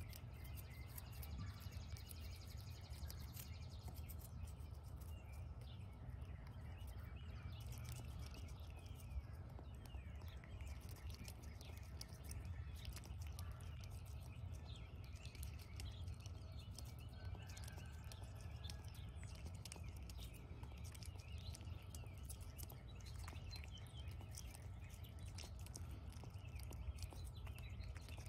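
Small birds chirping in the background over a steady low outdoor rumble, with many quick faint clicks throughout.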